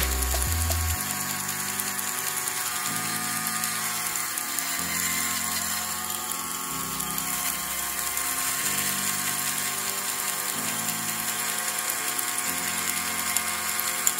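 Small Lego Technic electric motor whirring steadily, driving the gears and ratchets of a Lego ratchet CVT model.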